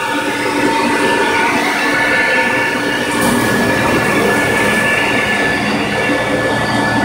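Walk-behind floor scrubber running, its vacuum motor giving a steady whine as the rear squeegee and hose suck water up off the floor.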